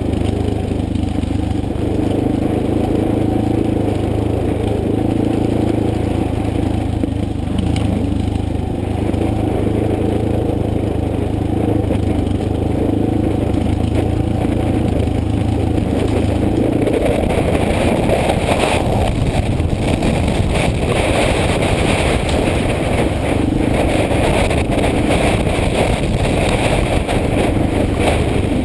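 Motorcycle engine running at steady revs on an unpaved forest road, with tyre and gravel noise. From about 17 seconds in the steady engine note gives way to louder rough-surface noise with many small clattering hits.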